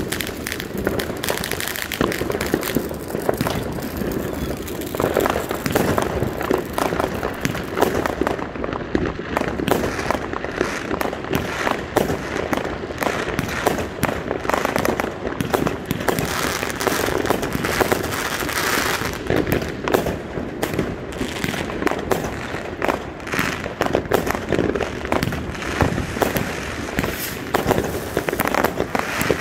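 Aerial fireworks going off continuously: a dense, unbroken run of pops and crackles.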